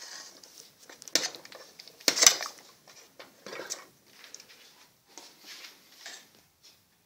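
Metal ladle scraping and knocking against the inside of a stainless steel stockpot as thick rice congee is stirred, in irregular strokes, the loudest a little over two seconds in.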